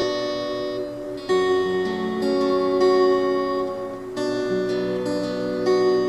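Background music: a plucked-string instrumental, with new chords struck every second or two and left to ring.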